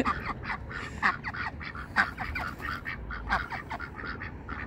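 A small flock of white domestic ducks quacking, many short calls a second, overlapping and coming without a break.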